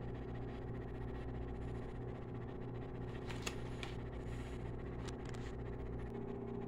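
Steady low electrical hum, with a few light taps and rustles of a cardboard microwave-pizza box being opened and handled a little past the midpoint.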